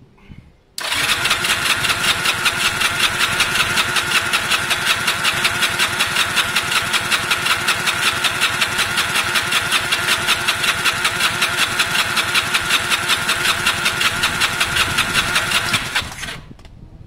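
Honda CB250 Nighthawk parallel-twin engine cranked over by its starter with the throttle held wide open for a compression test. It makes a fast, even pulsing of compression strokes that starts abruptly about a second in and stops about fifteen seconds later.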